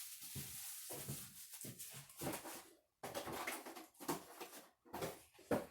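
Irregular rustling and rubbing of packaging and parts being handled, in short bursts with brief pauses and a sharper knock near the end.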